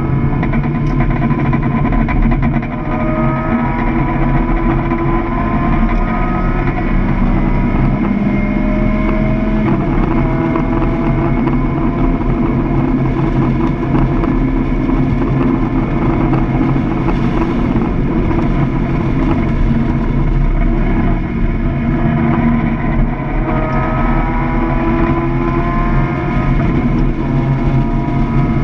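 Mazda MX-5 Miata's four-cylinder engine heard from inside the cabin, running hard at speed over road and wind noise. Its pitch climbs in steps as it accelerates, once in the first few seconds and again near the end.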